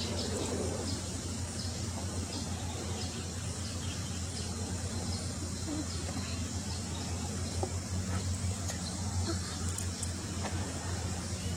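Outdoor ambience: a steady low hum with scattered faint, short high chirps.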